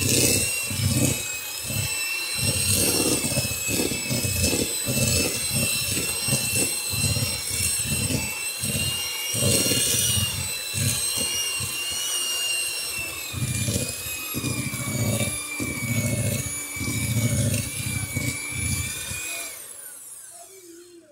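Electric hand mixer running at speed with a steady high motor whine, its beaters churning through softened butter and brown sugar in a plastic bowl to cream them. It is switched off near the end and the whine winds down and fades.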